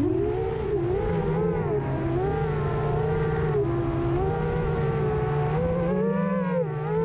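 FPV racing quadcopter motors whining in flight, the pitch rising and falling with the throttle.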